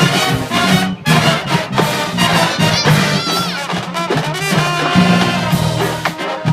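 Marching band playing a funk medley: loud brass with trumpets and trombones over a steady beat.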